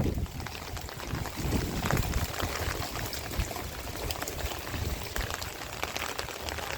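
Rainwater pouring and splashing, with many small drips, as runoff flows through a French drain system in steady rain.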